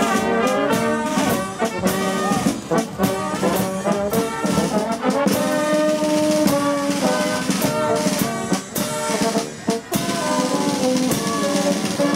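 Marching band playing a tune: trumpets and lower brass carry the melody, while a snare drum and a bass drum with a cymbal keep a steady beat.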